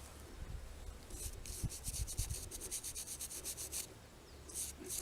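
Quick scratchy rubbing strokes, about five a second, as dirt is rubbed off a small dug-up metal find, part of a brass suspender clasp, held close to the microphone. The strokes start about a second in and come again briefly near the end.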